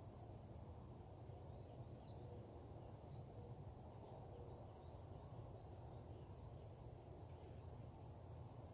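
Faint outdoor dawn ambience: a steady low background rumble, with a few faint bird chirps about two to three seconds in and a faint high pulsing note repeating about twice a second.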